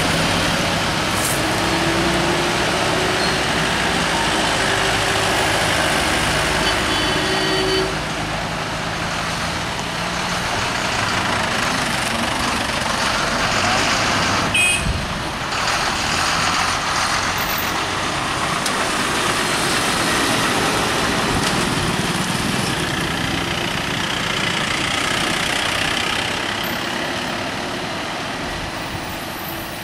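Heavy lorries, cars and a motorcycle driving through a steep hairpin bend: continuous engine hum and road noise, with one engine note rising slowly over the first several seconds. A sharp knock about halfway, and the traffic noise eases off near the end.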